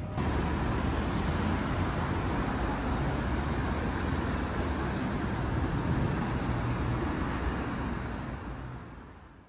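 Steady city road traffic noise from passing cars, starting suddenly and fading out over the last second or so.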